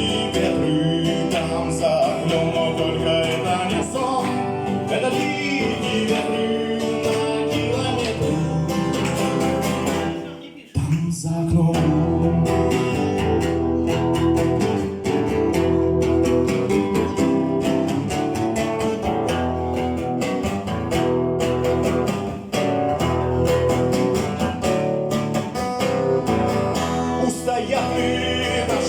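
Music: a song with acoustic guitar playing, which breaks off for a moment about ten seconds in and then carries on.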